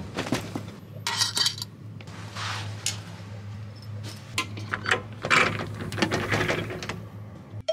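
Belongings being handled and set down: plastic pouch and bag rustling with light clinks and knocks of small items, over a steady low hum.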